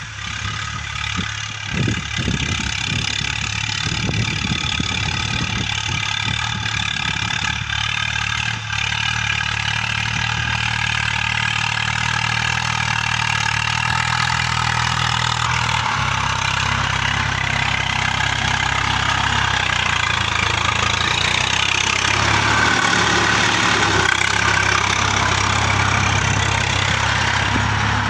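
Swaraj 855 FE tractor's three-cylinder diesel engine running steadily under load as it pulls a cultivator through the soil, its note shifting about halfway through and growing louder as it draws near.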